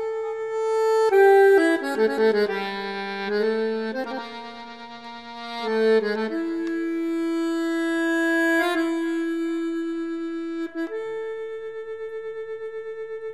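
Background music of held, reedy notes and slow-changing chords. Near the end it settles on one held chord that pulses about four times a second.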